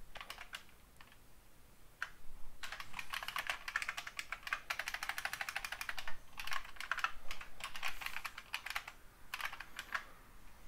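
Typing on a computer keyboard in runs of quick keystrokes. A few scattered keys come first, then steady typing from about two and a half seconds in, broken by short pauses.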